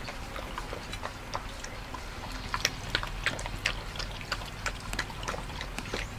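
Dog lapping and chewing soup from a metal bowl: a run of irregular wet smacks and clicks.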